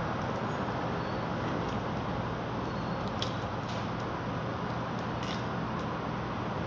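Steady background hum and hiss, with a few faint crackles of eggshell being peeled off a hard-boiled egg by hand.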